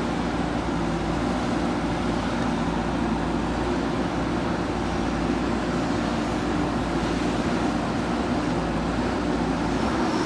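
Heavy diesel machinery engine running steadily, with a constant low hum and no change in pace.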